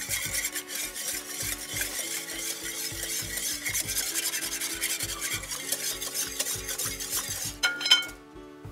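Wire whisk beating a runny mix of honey and beer in a glass bowl, its tines clicking and scraping against the glass in a quick, steady rhythm. It stops near the end.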